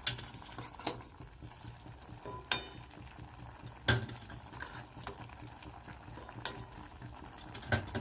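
A metal spoon clinking against a steel pot as boiled eggs are lifted out of the boiling water, about six sharp clinks a second or so apart, some briefly ringing. The water bubbles in the pot underneath.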